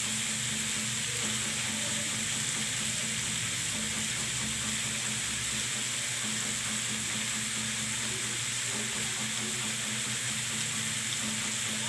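Pork and vegetables frying in a pan, sizzling with a steady hiss. A faint steady low hum lies beneath it.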